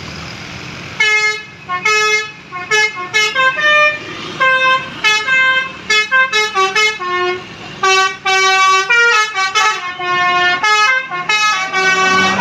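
Bus telolet basuri musical air horn playing a quick melody of short, separately pitched notes, starting about a second in, over the low hum of the engine.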